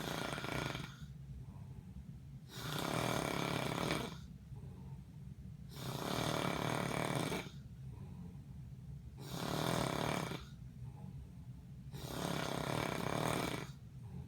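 A sleeper snoring in a slow, regular rhythm: five noisy snores, about one every three seconds, each lasting a second or so, with quieter breathing in between.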